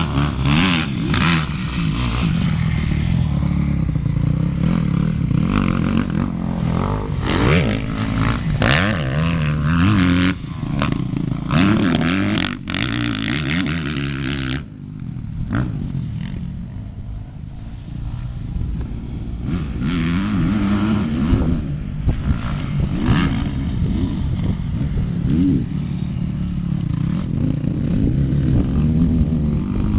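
Motocross bike engine revving hard and easing off again and again as it rides the track, the pitch climbing and dropping with each throttle and gear change. About halfway through the sound turns duller and drops a little before building again.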